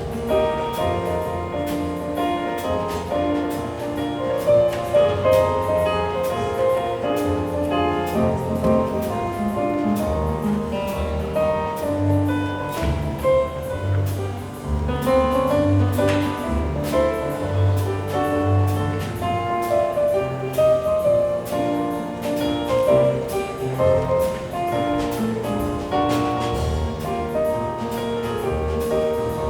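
A school choir performing with piano accompaniment: continuous music with held and moving notes, no pauses.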